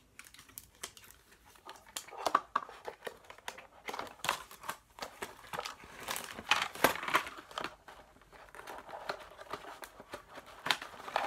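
Packaged school supplies being handled and put into a plastic crate: crinkling plastic and card packaging with many irregular light clicks and knocks, starting about two seconds in.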